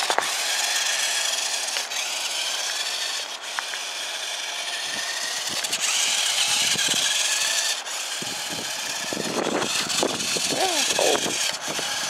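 Small electric RC rock-crawler truck driving over snow and ice, its motor and gearbox whining steadily, the pitch shifting a little with the throttle.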